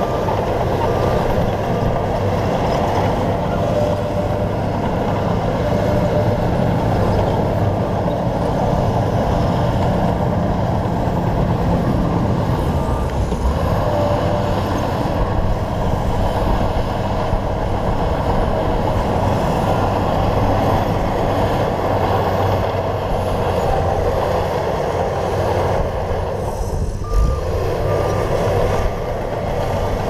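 Shantui crawler bulldozer's diesel engine running steadily under load as it pushes stone and soil, with a reversing alarm beeping over and over.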